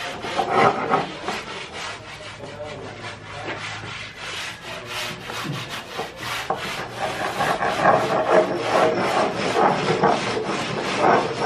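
Repeated rough scraping strokes of a hand tool working wood, with short knocks mixed in throughout.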